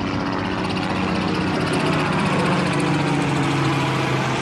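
Helicopter flying overhead: a steady drone of rotor and engine whose pitch slowly drops as it passes by.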